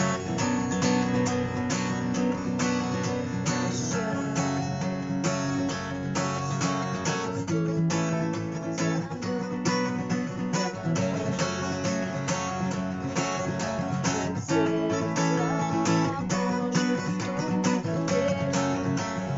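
Acoustic guitar strummed in a steady rhythmic pattern with sharp percussive strikes on the strings (the 'stuk' strumming technique), the chords changing every few seconds.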